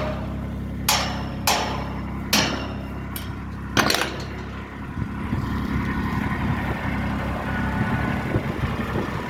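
RTV utility vehicle engine running steadily at low speed, with four sharp knocks in the first four seconds.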